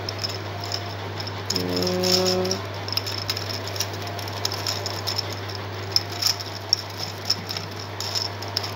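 Plastic gear cube being twisted by hand: irregular clicking and rattling of its geared pieces, with a few sharp clicks around six to seven seconds in. About a second and a half in, a short steady pitched tone sounds over it for about a second. A steady low hum runs underneath.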